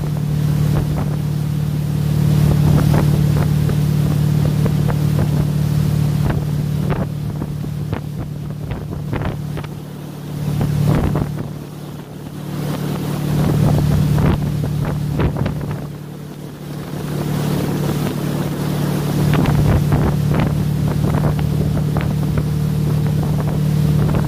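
Tow boat's motor running steadily at speed, a low drone that eases briefly twice, over the rush and splash of its wake.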